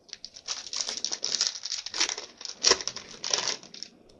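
Plastic booster-pack wrapper crinkling in irregular bursts as it is handled and torn open.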